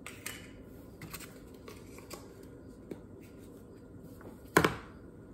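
Light clicks and handling noise from a plastic measuring spoon and a baking-powder container being worked at a kitchen table, then one sharp knock near the end, the loudest sound, as something is set down hard on the table.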